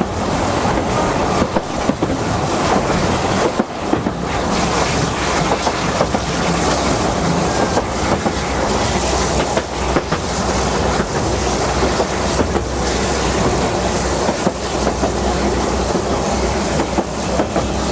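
Welsh Highland Railway narrow-gauge train running steadily, with a continuous rumble and frequent clicks of the wheels over the track.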